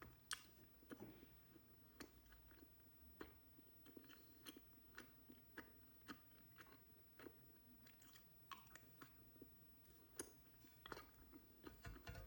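Faint, close-miked chewing of ice cream with chewy honey-filled rice cakes: soft wet mouth clicks and smacks, about two a second.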